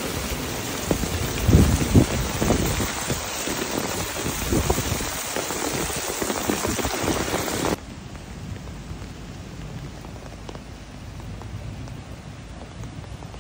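Heavy rain mixed with hail pelting the ground, with a few loud low thumps about a second and a half in. About two-thirds of the way through it cuts to a quieter, steady rain.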